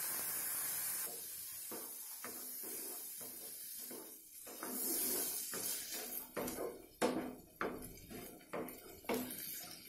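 A spatula stirring boiled red gram in a kadai, knocking and scraping against the pan in irregular strokes that grow louder in the second half. A steady hiss fills the first second.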